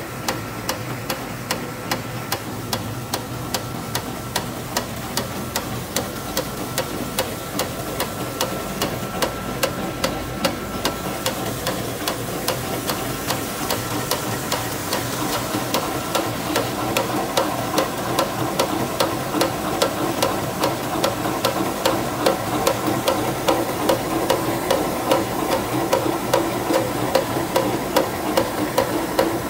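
Crinkle paper shredding machine running: a steady mechanical hum with a regular clacking several times a second, as the paper is cut into crinkled shreds.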